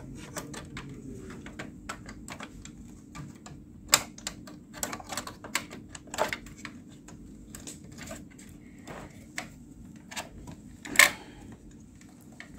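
Irregular clicks and taps of hands handling a RAID controller card and its metal bracket inside an open server chassis, with sharper clicks about four and eleven seconds in, over a steady low hum.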